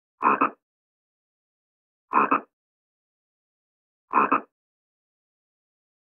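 Frog croaking three times, evenly about two seconds apart, each croak a short call in two quick pulses.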